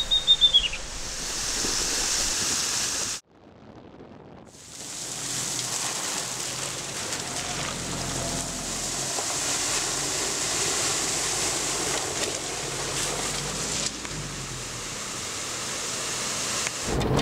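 Steady rushing noise of a four-wheel-drive SUV driving along a wet dirt road, tyre and wind noise together, broken by a short quiet gap about three seconds in.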